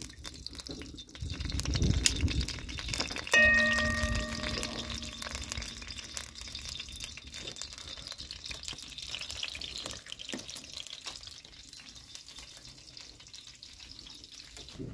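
Wood fire crackling with food sizzling in an iron pan. About three seconds in comes a single metallic clang that rings on for a second or so.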